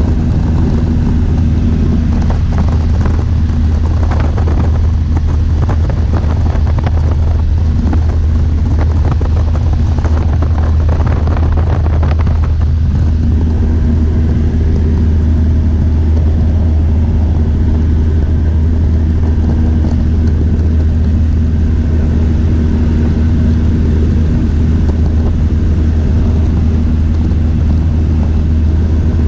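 Light airplane's engine and propeller droning steadily, heard from inside the cabin in cruising flight.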